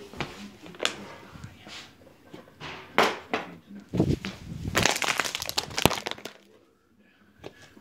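Handling noises: a few sharp knocks, the loudest about three seconds in, then about two seconds of dense crackling and rustling, before it goes nearly quiet near the end.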